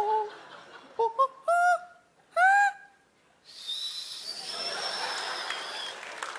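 Exaggerated hooting, honking laugh: several short rising pitched hoots in the first three seconds, the last the loudest. About three and a half seconds in, the audience breaks into applause, with a high whistle running over it.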